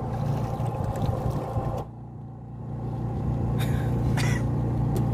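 A fishing boat's engine running with a steady low drone, briefly muffled about two seconds in. Two short knocks come near the end.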